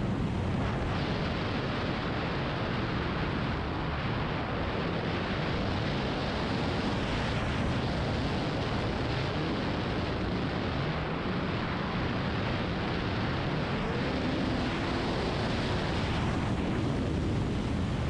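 Snowmobile running steadily at trail speed, its engine and track drone buried in a heavy low rumble of wind buffeting the microphone.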